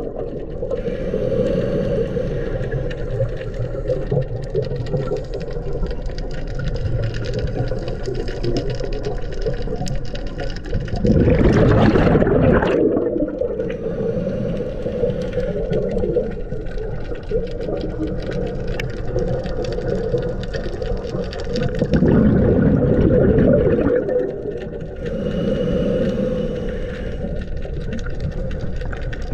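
Underwater sound picked up through a GoPro housing on a scuba dive: a steady muffled noise, with scuba regulator exhalation bubbles bubbling loudly past the camera twice, about eleven seconds in and again about twenty-two seconds in.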